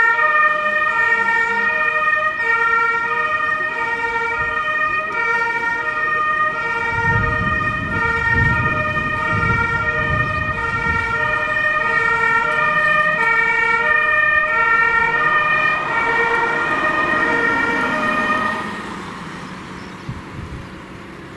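German fire-service two-tone siren (Martinshorn) sounding in its steady alternating high-low pattern, cutting off near the end. A vehicle engine rumble comes in about a third of the way through.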